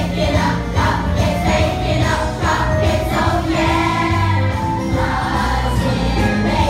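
Children's choir singing a Christmas song with instrumental accompaniment, held low bass notes under the voices.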